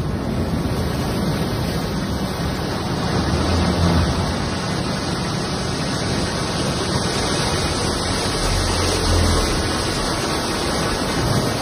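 Seawater flooding an aircraft carrier's hangar deck as she sinks: a loud, steady rushing of surging water, with deep rumbles swelling now and then.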